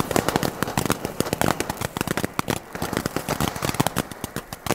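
Keller Class 1 volcano fountain burning on the ground: a dense, fast crackle of popping sparks that thins a little in the second half.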